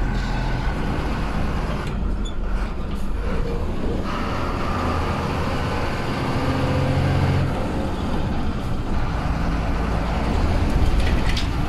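Ashok Leyland bus diesel engine running as the bus drives along, with steady road rumble heard from the cab; the engine note shifts up and down a little as it goes.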